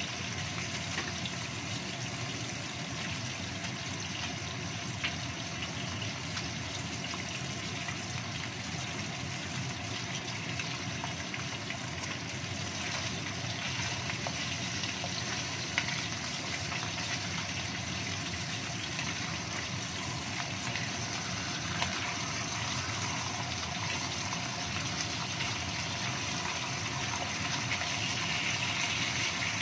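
Salmon steaks sizzling steadily in hot oil in a wok, with a few sharp ticks. A wooden spatula turns the fish near the end, and the sizzle grows a little louder.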